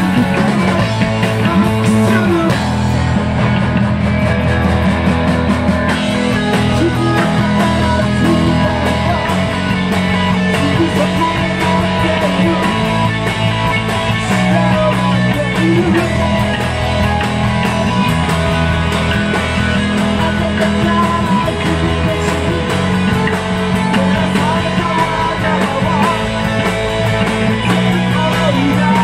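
Live rock band playing loud and without a break: distorted electric guitar, bass and drum kit, with a male singer shouting and singing into the microphone.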